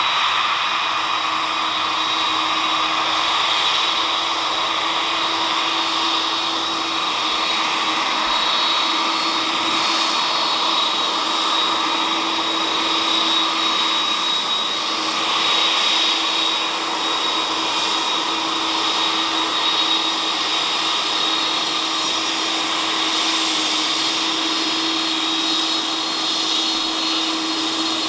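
Jet engines of a McDonnell Douglas three-engined freighter running steadily at low taxi thrust as it rolls along the runway: a constant high-pitched whine over a hum.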